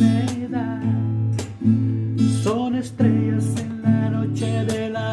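Acoustic guitar strummed in a steady rhythm, chords struck several times a second.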